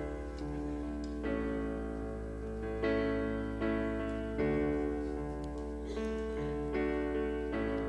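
Soft piano or electric keyboard playing slow sustained chords, a new chord struck about every second or so.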